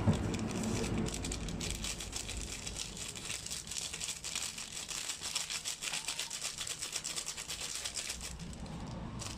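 Plastic wrapper of a SkyFlakes cracker pack crinkling rapidly as hands squeeze and shake the crushed crackers out into a bowl.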